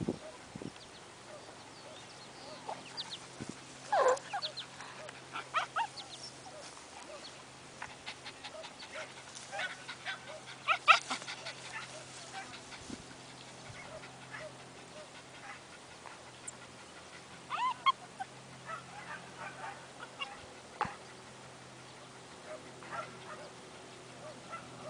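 A Glen of Imaal Terrier giving scattered short barks and yelps in clusters, loudest near the middle. A faint steady hum lies underneath.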